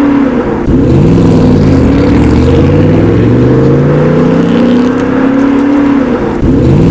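Racing car engine sound effect: several engines revving, their pitch sweeping up and down repeatedly.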